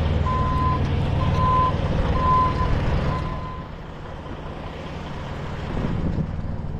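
A backing vehicle's reversing alarm beeping about once a second over a running truck engine. The beeps stop and the engine sound fades about three and a half seconds in.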